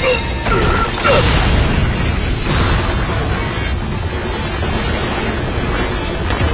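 Anime battle sound effects: heavy rumbling and crashing booms under dramatic music, with a short cry about half a second in.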